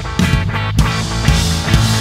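A rock band playing live, with electric bass and two electric guitars over a steady beat of hits about every half second.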